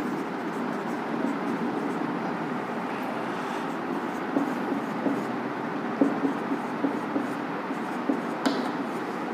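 Writing by hand: light scratching strokes with small taps, over a steady background hiss.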